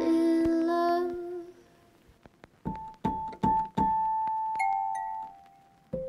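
Background piano music: a chord rings and dies away, a short pause, then a few single notes are played slowly one after another, the last held.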